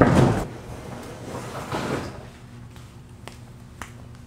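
Plastic kayak hull set down on wooden boards on a concrete floor: a heavy thump at the start, then softer scraping as it shifts about a second and a half later, and a few light taps near the end.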